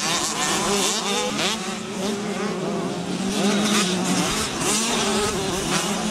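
Several 80cc two-stroke motocross bikes racing, their engines revving up and down in overlapping, constantly changing pitches as riders accelerate and shift around the track.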